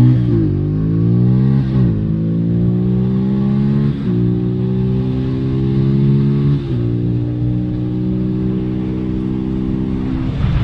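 Beta RR 125 LC four-stroke single-cylinder engine with its dB killer removed from the exhaust, pulling away and accelerating up through the gears. The pitch climbs and drops back at upshifts about two, four and seven seconds in, then holds fairly steady before easing off near the end.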